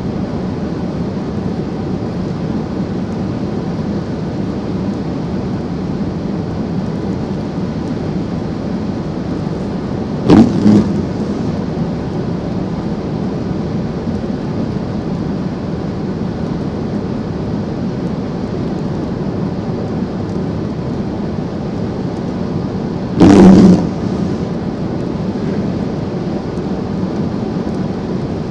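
Steady road and tyre noise heard inside a car driving on a rain-wet highway. About ten seconds in, and again near twenty-three seconds, there are short loud thumps, the loudest sounds here.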